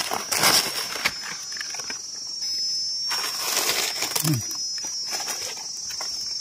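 Dry leaf litter rustling in short bursts as hands pick through it, over a steady high-pitched insect drone.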